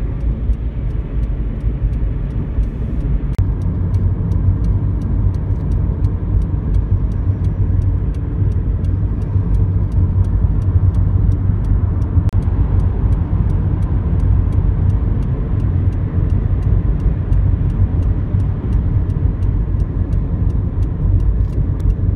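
Steady low road and tyre rumble inside a car being towed on a rope with its seized engine silent.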